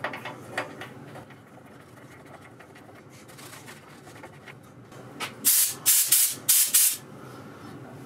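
Compressed air from a DEWALT Emglo compressor let out through its air hose in a quick run of short, loud hissing blasts, starting about five seconds in, over a low steady hum. The tank is under pressure and the freshly repaired compressor is delivering air.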